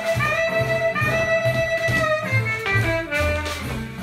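Swing jazz music: a melody of long held notes over a steady bass beat.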